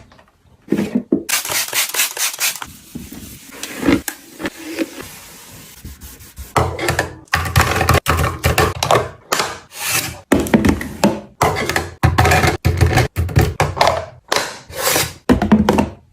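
Packaged food and drinks being set down, slid and arranged on fridge shelves: repeated knocks, thunks and scraping rubs. The sound comes in short snippets that cut off abruptly one after another.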